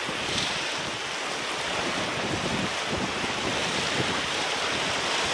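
Steady, even rushing background noise with no distinct events in it.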